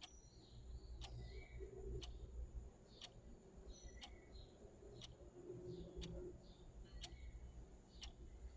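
Clock ticking faintly, about once a second, with birds chirping softly in the background.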